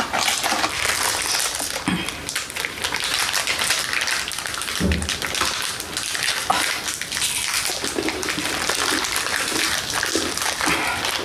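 Close-miked crackling and rustling with many small clicks, with a dull thump about five seconds in.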